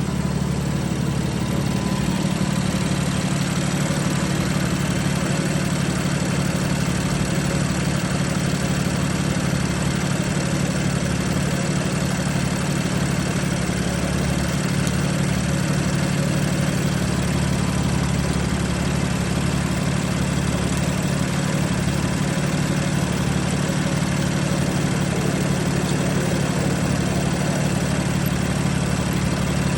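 BMW F80 M3's S55 twin-turbo inline-six idling with a misfire, the low engine note dipping irregularly.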